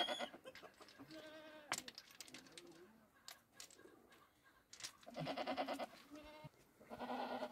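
Goats bleating several times, wavering calls, the longest and loudest about five seconds in, with a few sharp clicks between them.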